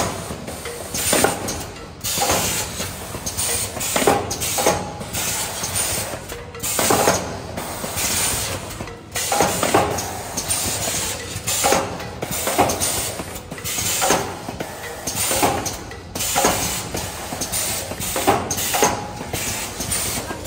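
Automatic paper boat tray forming machine running in its cycle: a sharp burst of air and mechanical clatter repeats a little more than once a second over a steady background hiss, as its pneumatic cylinders fire and the mould presses the paper trays.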